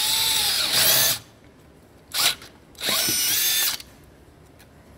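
Cordless drill boring a hole into the LGX V6's intake manifold. The motor runs and stops about a second in, gives one short blip, then runs again for about a second before stopping.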